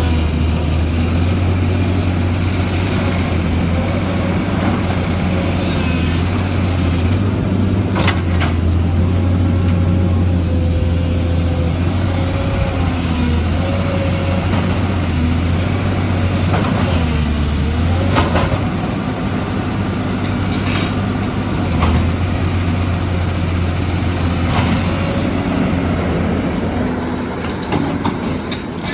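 Heavy diesel engine of an excavator running steadily, its note dipping briefly under load about two-thirds of the way through, with a few sharp knocks.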